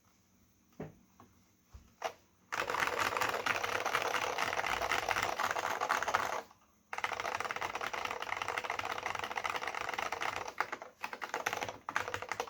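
AT&T Unix PC keyboard with Alps SKCM Brown switches and PBT keycaps being typed on. A few single keystrokes come first, then two long runs of fast, dense typing with a brief break in between, and it ends with scattered keystrokes.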